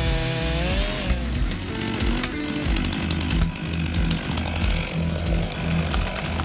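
Chainsaw running and cutting, over background music with a steady low beat.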